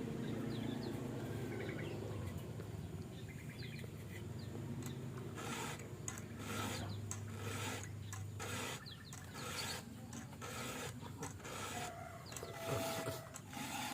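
Repeated rasping strokes, like a saw working through wood, coming irregularly from about five seconds in. A faint low hum underlies the first part, and small bird chirps are heard.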